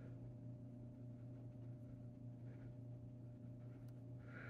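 Quiet room tone with a steady low hum and one faint tick near the end.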